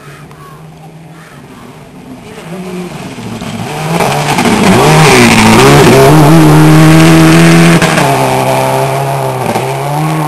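Rally car engine at full throttle on a gravel stage, approaching and passing close by. The revs dip and climb as it shifts and slides through the corner, over the spray of gravel under the tyres. The engine note then drops and fades as the car drives away.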